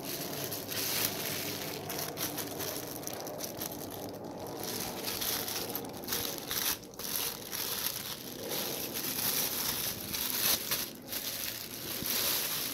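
Clear plastic bag crinkling and rustling as it is handled around the microscope head it wraps, with many small irregular crackles.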